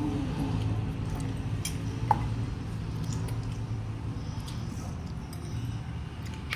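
Egg noodles being eaten, with soft wet eating sounds and light clicks of a spoon on a bowl. One sharper clink rings briefly about two seconds in, over a steady low hum.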